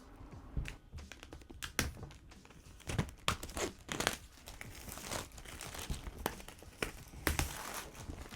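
AirPods Max retail box being opened: packaging tearing, crinkling and rustling, with scattered light clicks and taps of handling.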